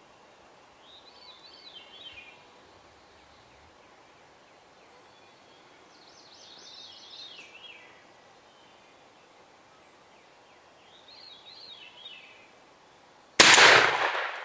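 A wild turkey tom gobbles three times, each a rattling call of a second or two, then a single shotgun shot goes off near the end, by far the loudest sound, and dies away over about a second. The shot is fired at the tom from about 25 yards.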